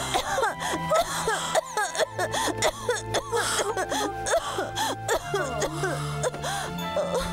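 Cartoon background music with held notes, under a quick run of high squeaky, chirp-like calls that rise and fall in pitch several times a second.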